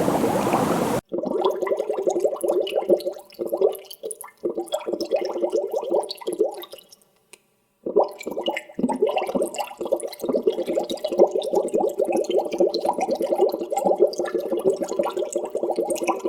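Water bubbling. A dense, boiling-like bubbling cuts off abruptly about a second in and gives way to a stream of separate gurgling bubble pops. These thin out and stop for about a second near the middle, then start again thickly.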